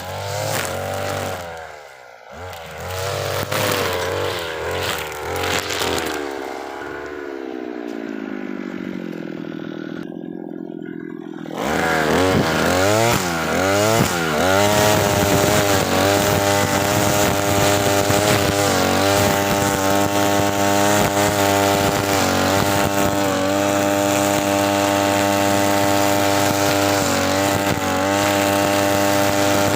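TB43 two-stroke brush cutter with a nylon trimmer head. It revs up and down, drops back to idle about six seconds in, then opens up again at about twelve seconds and is held at full throttle, dipping briefly now and then as it cuts through dense grass.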